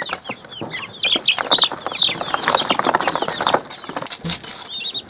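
Chicks peeping in a cardboard box: rapid, high, short chirps, thick for the first three seconds or so, thinning out, then a few more near the end. Hands moving the chicks and the cardboard flaps add rustling and scraping.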